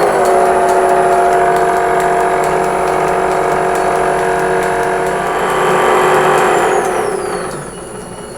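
Hardinge Cataract lathe running on its motor with a steady mechanical hum and a persistent noise from its rollers. The owner blames the noise on excess clearance in the rollers' sleeve bearings. About seven seconds in, the machine winds down with a falling high whine.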